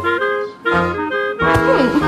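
Playful film-score music with a reedy melody of short, bouncing notes. About one and a half seconds in, a sharp hit is followed by a swooping sound effect that glides in pitch.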